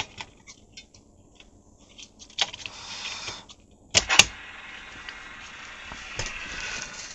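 Scattered plastic clicks and taps as the Philips AE2402/05 radio is handled, with two sharp clicks about four seconds in. A steady hiss follows.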